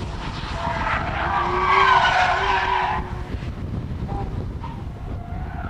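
Porsche Carrera GT driving past on the track, its engine and tyre squeal swelling to a peak about two seconds in and then fading.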